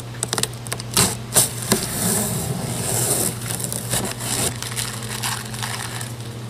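Cardboard box and plastic packaging being handled and unpacked: scraping, crinkling and knocks, with a burst of crinkling about two to three and a half seconds in, over a steady low hum.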